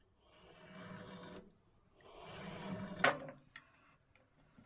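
Marking a cut line across an ash board against a steel square: two scratchy strokes of about a second each, with a sharp click about three seconds in.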